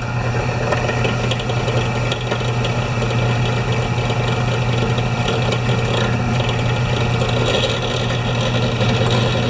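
Electric drill running steadily under load, drilling a hole into a metal end fitting for a snowblower control cable.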